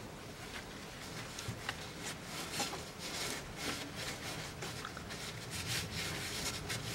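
A rag rubbing along a car's metal exhaust pipe in a run of irregular wiping strokes.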